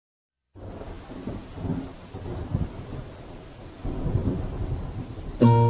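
Recorded rain with rolling thunder, rising and falling in slow swells, opening a song's soundtrack; it starts about half a second in. Near the end a plucked guitar comes in sharply.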